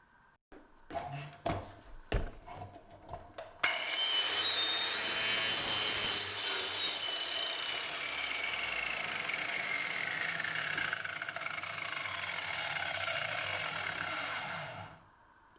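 A few handling knocks and clicks, then about three and a half seconds in an undercut jamb saw starts suddenly and cuts into a metal door frame for about eleven seconds, a steady grinding rasp with a whine that slowly drops in pitch, before it stops.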